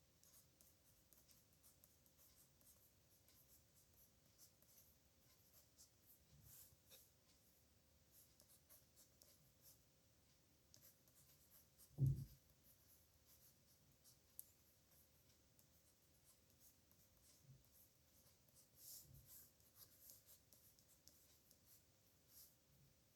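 Faint scratching of a pen on paper as characters are written by hand, in short irregular strokes. About halfway through there is a single low thump, the loudest sound.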